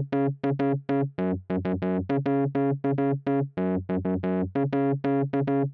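Background music: an electric-piano tune of quick, short, bouncy notes.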